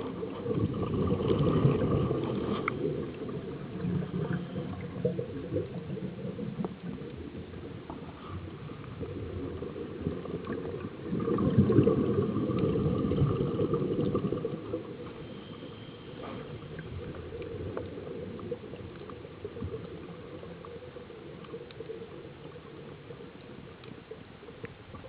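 Scuba diver's regulator breathing underwater: two long, loud bubbling exhalations, one near the start and one about halfway through, with quieter breathing noise between.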